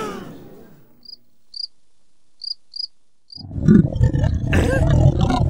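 Cartoon sound effect of crickets chirping in an awkward silence: five short, high chirps. Then, about three and a half seconds in, a loud, low rumbling starts, the cartoon sound of a stomach straining to go on the toilet.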